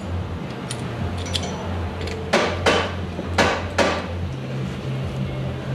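Four sharp metallic clanks, in two quick pairs about a second apart, as tools meet the removed cast steering box on the workbench, over a steady low hum.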